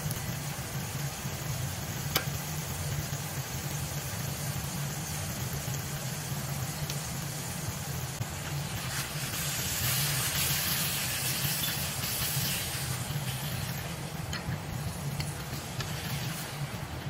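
Beef and bell peppers sizzling in a steel wok over a steady low hum, the sizzle growing stronger about nine seconds in. Near the end, wooden spatulas stir the food in the wok.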